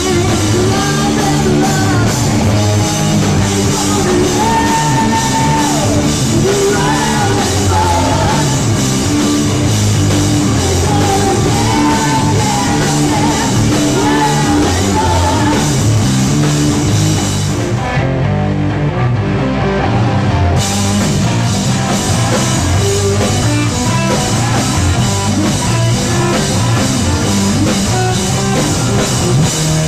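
Live rock band playing loud: electric guitar, drum kit and sung vocals. Past the middle the cymbals and high end drop out for about two seconds before the full band comes back in.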